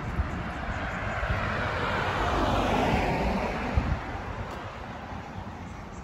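A car passing on the road: tyre and engine noise swelling to a peak about three seconds in, then fading away.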